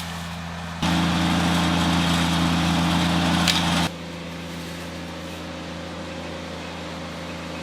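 Motor vehicle running with a steady, low engine drone at constant pitch. About a second in it gets clearly louder, with more engine and road noise for about three seconds, then drops back abruptly to the steady drone.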